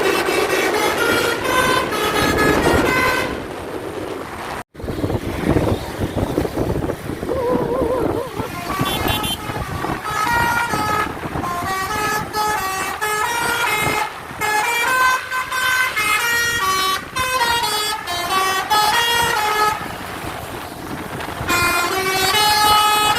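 Bus telolet (basuri) musical air horn playing quick tunes of short stepped notes in several runs. The tune breaks off just before 4 s and again near 21 s, then starts up again.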